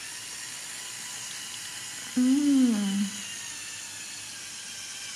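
LEGO Mindstorms EV3 puppy robot set going from its brick: a steady hiss with faint whining tones that starts abruptly and cuts off suddenly. A short hum gliding down in pitch comes about two seconds in.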